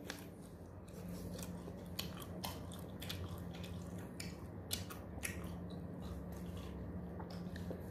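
Eating sounds: faint, scattered smacks and clicks of chewing and of fingers picking meat off mutton leg bones, over a steady low hum.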